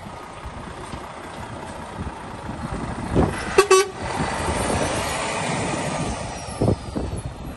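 Volvo FH 500 tractor unit's diesel engine running as the truck drives past and turns, with a brief toot of its horn about halfway through.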